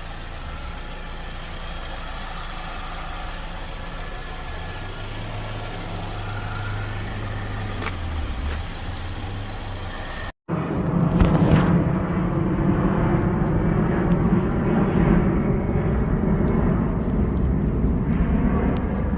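2009 Chevy Cobalt's engine idling steadily, freshly started after an oil change. About ten seconds in, the sound cuts and comes back louder and duller.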